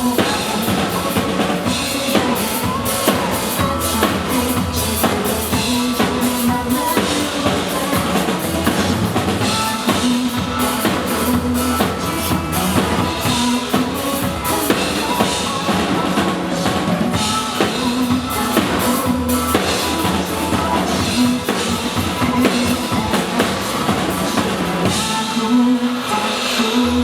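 Music with a steady drum-kit beat (bass drum and snare) over a bass line.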